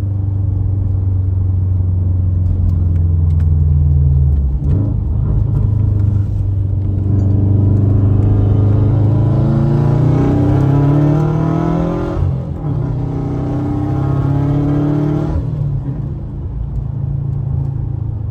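Subaru EJ20X 2.0-litre turbocharged flat-four in a 2011 WRX, heard from inside the cabin while driving through a single-exit Tomei exhaust. It holds steady for a few seconds, then revs climb under acceleration, break briefly for a gear change about 12 seconds in, climb again, and fall away about 15 seconds in.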